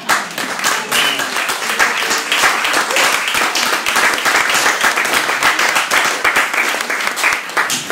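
Audience applauding: dense clapping that starts at once and holds steady, dropping away at the very end.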